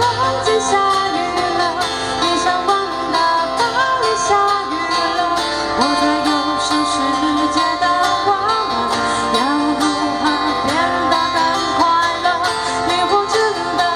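Live song: a singer's voice through a microphone, accompanied by a single acoustic guitar.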